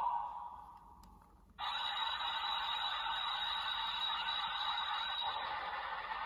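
Electronic sound effect played through a toy Ultraman Decker Ultra Flash Sword's small speaker after an arcade card is scanned. A short sound right at the start fades away, then about a second and a half in a loud, steady, hissing effect starts suddenly and holds.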